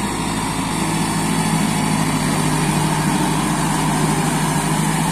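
Kubota MU5501 tractor's four-cylinder diesel engine running steadily as it pulls a rotavator through flooded, muddy ground.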